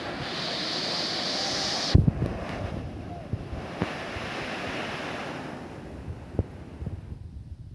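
Rushing water of a waterfall heard as a steady noise, with wind on the microphone. A sharp knock about two seconds in is the loudest moment, and the water noise fades to much quieter near the end.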